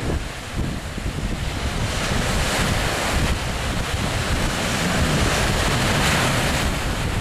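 Strong wind buffeting the microphone over rushing, choppy water: a loud, steady rush that swells a little twice.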